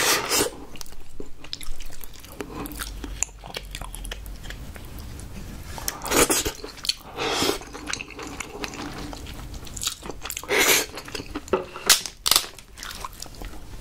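Chewing and biting on cooked king crab meat, with a few louder crunches and cracks of crab shell about six seconds in and again in the last few seconds.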